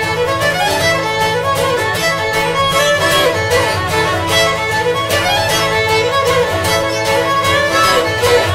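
Lively instrumental music led by a fiddle melody over a steady beat.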